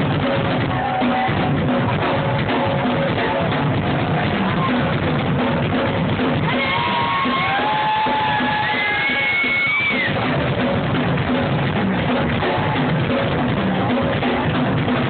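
Live rock band playing, driven by a drum kit with bass drum. From about six to ten seconds in, a few high sliding notes rise and fall over the top while the low end drops back.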